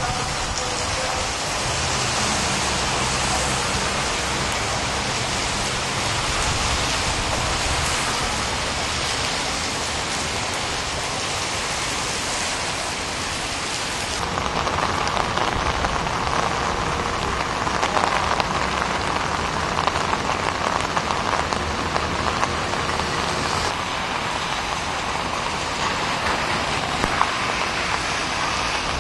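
Heavy rain falling and splashing on pavement, a steady hiss that shifts in tone about halfway through.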